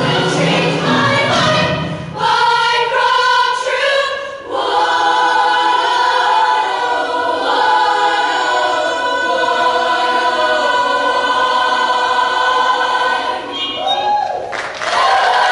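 Mixed show choir singing in close harmony. The low accompaniment drops away after about two seconds, leaving the voices on short stacked chords and then long held chords, and the full sound comes back in just before the end.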